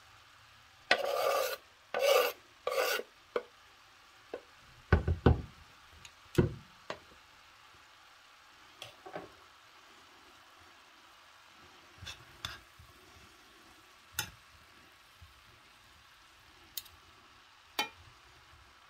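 Salad-making handling noises: three short rasping rustles about a second in, then two dull knocks and scattered light clicks and taps.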